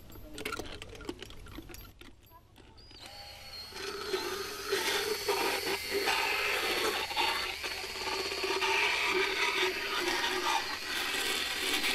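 After a few light clicks, an electric power dental float starts up about three seconds in and runs steadily, filing down a horse's teeth.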